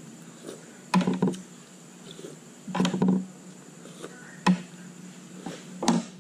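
Mouth sounds of eating by hand: a few short, sharp smacks and clicks of lips and chewing, about five in six seconds, over a low steady hum.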